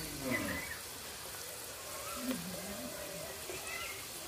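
Oil sizzling steadily in a kadai as flour snacks deep-fry in gently heated oil. A few pitched calls rise and fall in the background, the loudest about a quarter second in and again about two seconds in.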